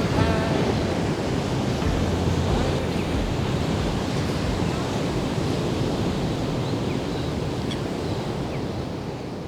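Ocean surf breaking and washing, a steady noisy wash with a low rumble, fading down near the end.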